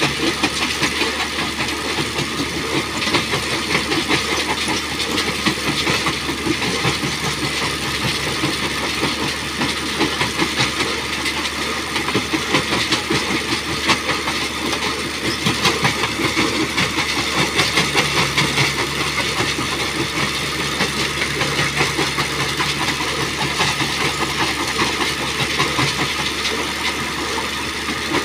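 Mobile jaw crusher at work: its engine runs steadily while stone clatters continuously through the crusher jaws and off the conveyor into a tractor trolley.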